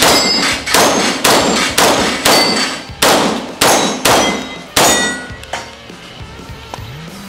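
Rapid single shots from a 9 mm carbine, about nine of them at roughly two a second, stopping about five seconds in. Each shot is followed by the ringing ping of a struck steel plate target.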